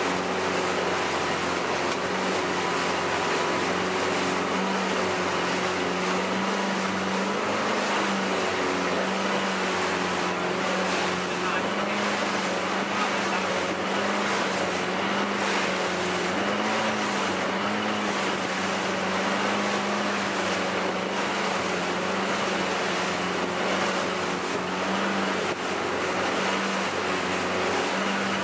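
Open river boat's engine running with a steady drone under way, over the rush and splash of water along the hull and wind.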